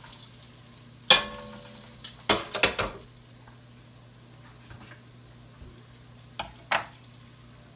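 Metal tongs clinking against an enamelled cast-iron pot: one sharp ringing clink about a second in, a quick run of clicks a little later, and two lighter clicks near the end, over a faint sizzle of floured chicken drumsticks browning in oil.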